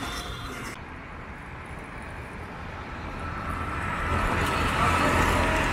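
A road vehicle approaching, its engine hum and road noise growing steadily louder over the last few seconds.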